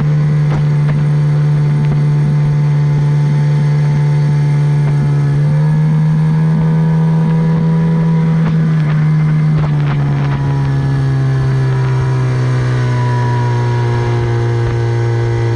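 Tohatsu 25 hp outboard motor running under way. Its pitch steps up about five seconds in, drops back about four seconds later, and then eases a little lower.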